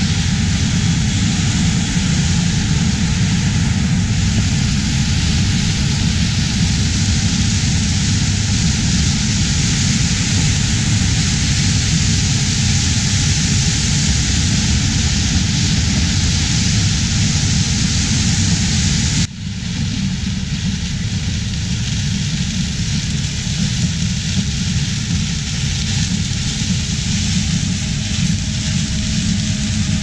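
Versatile RT520 combine harvester running steadily as it harvests corn, a dense, even machinery noise. About two-thirds of the way through the sound drops suddenly and carries on a little quieter.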